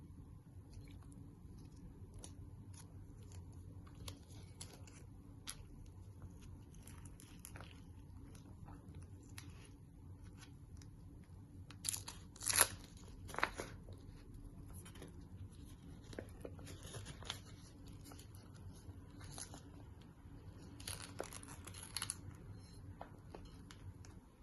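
Bamboo leaves rustling, crinkling and tearing by hand as a zongzi is unwrapped, with small clicks throughout; the loudest tearing comes about halfway and again near the end.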